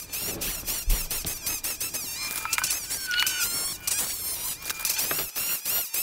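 A fast run of high chirping squeaks and ticks from a graver cutting scrollwork into an aluminum pedal cover, the audio sped up along with the footage.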